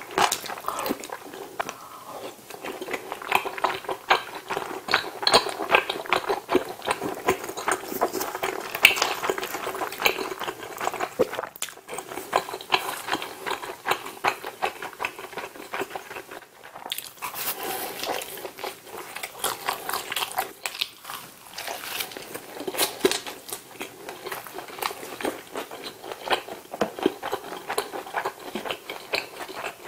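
Close-miked eating sounds: chewing spicy tteokbokki, then biting into and chewing pizza. There are many small irregular clicks and crunches throughout.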